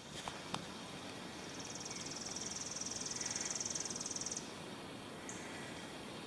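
An insect trilling high and fast for about three seconds, then stopping, with one short chirp a second later, over quiet outdoor background.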